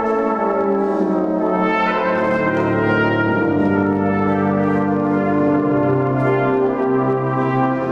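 Cornet solo over a full brass band accompaniment, the soloist playing long held melody notes above sustained band chords. Deeper bass notes from the low brass come in about two seconds in.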